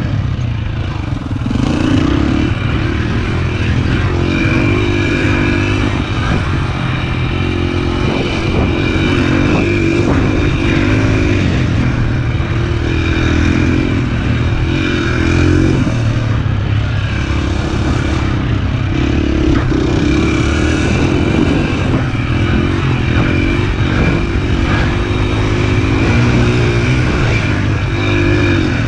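Small pit bike engine running under way, its note rising and falling repeatedly as the throttle is opened and eased.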